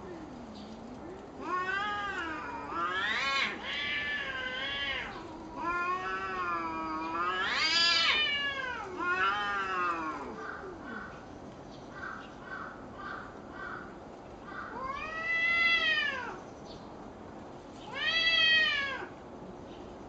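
Two cats caterwauling at each other in a fight standoff: long, wavering yowls that overlap at times, a run of short, evenly spaced wails a little past the middle, then two rising-and-falling howls near the end.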